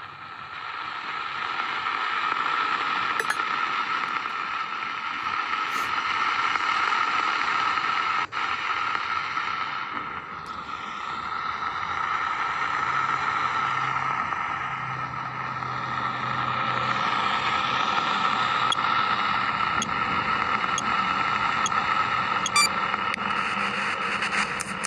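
Ghost-box (spirit box) app on a handheld phone sweeping through radio static: a steady hiss with a strong mid-pitched band, dropping out briefly about eight seconds in.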